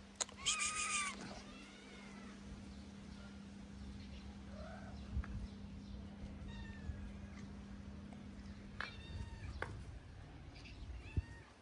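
Hungry stray cats meowing repeatedly to be fed: one loud, high meow about half a second in, then quieter meows every second or two. A faint steady low hum runs underneath until near the end.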